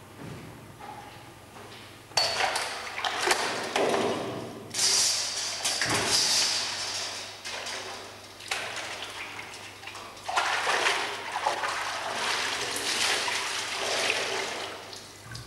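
Whey sloshing and splashing in a copper cheese vat as the curd is gathered into a cheesecloth and lifted out, whey streaming back off it. It comes in long rushes with a lull a little past the middle.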